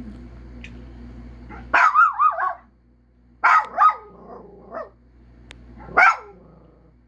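A dog howling and barking in four short bouts, each a wavering yowl that bends up and down in pitch.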